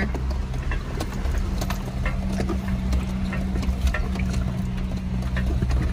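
Jeep Wrangler engine running at low, steady revs as it crawls a rocky trail, heard from inside the cabin, with scattered light clicks and rattles.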